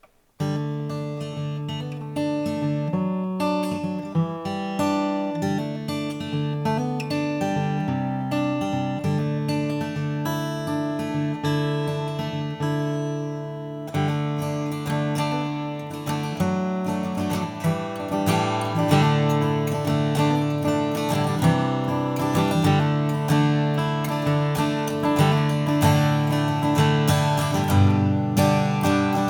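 Martin Custom Shop Style 18 acoustic guitar with an all-flamed-mahogany top, back and sides, played solo: plucked notes and chords ringing, starting about half a second in and growing fuller and brighter in the second half.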